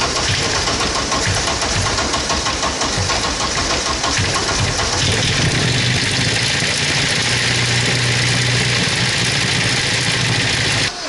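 Ford Sierra's engine running on its first start after a rebuild of the fuel lines and wiring, with a knocking sound that is taken for an engine knock; its note shifts about halfway through.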